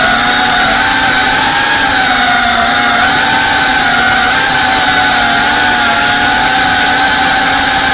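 FPV drone's electric motors and propellers whining steadily, picked up close by the onboard action camera, the pitch wavering slightly with the throttle.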